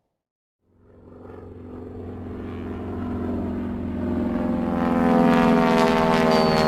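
An engine drone fades in after a moment of silence and grows steadily louder, holding a steady pitch. Near the end a high thin tone begins gliding down in pitch over it.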